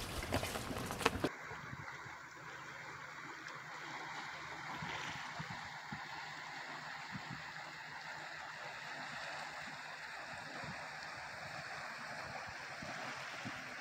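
Seawater gurgling and washing steadily past shoreline rocks, a soft even rush. A louder crackly noise cuts off about a second in.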